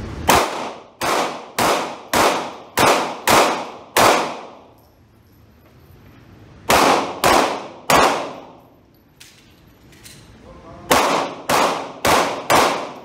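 Pistol shots fired in quick strings: seven at about two a second, a pause, three more, then after a longer pause four more. Each shot rings out in the echo of an indoor range.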